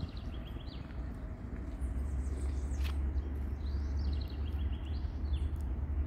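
Birds chirping in a wooded park, with two runs of quick repeated notes, over a steady low rumble.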